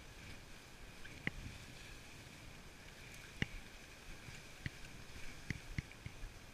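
Wooden dogsled gliding over a snowy trail: a steady hiss from the runners, broken by a handful of sharp clicks and knocks from the sled.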